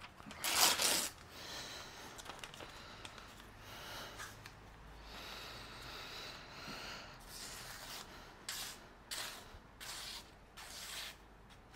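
Paper handled and rustled, loudest in a burst about half a second in, then a freshly sharpened knife slicing through a glossy catalog page in several short strokes near the end: a paper cut test of the edge.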